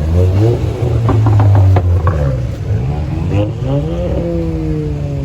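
Car engine revved hard twice, its pitch climbing, holding, then slowly falling away after the second rev, with a quick run of sharp cracks during the first rev.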